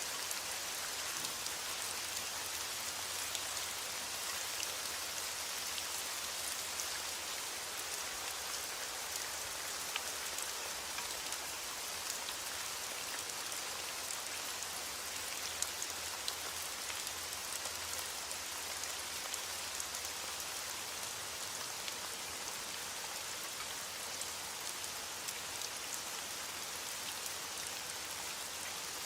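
Steady rain falling, an even hiss with the patter of individual drops striking a surface.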